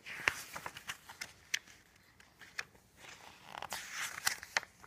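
Paper rustling as the pages of a paperback children's book are turned and handled, with a few sharp clicks and a denser stretch of rustling near the end.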